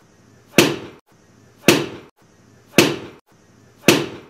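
Axle shaft slammed down hard onto a stack of tires, the crude way of knocking a bearing loose: four sharp impacts about a second apart, each ringing briefly.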